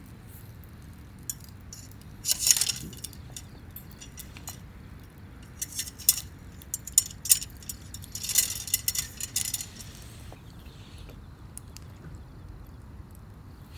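Small hard objects clinking and jangling as they are handled: two brief rattling clusters and a few scattered single clicks over a low steady background hum.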